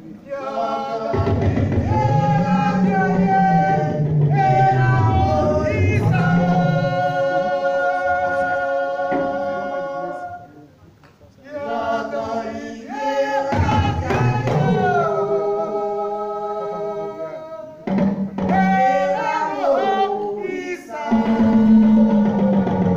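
A voice singing long, held notes that glide up and down, with little or no drumming under it, and a short break about eleven seconds in.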